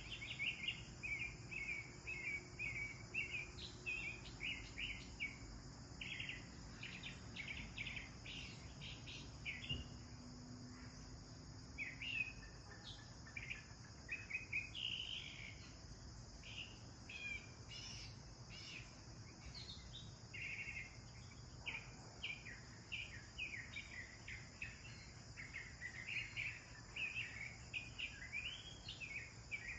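House sparrows chirping: a dense run of short, repeated chirps throughout. Behind them is a steady high-pitched insect drone.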